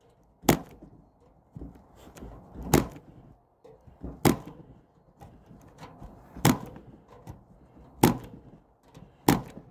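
Electric staple gun firing staples through wire mesh into a wooden frame: six sharp shots, one every one and a half to two seconds, with softer knocks of the tool being moved and set down between them.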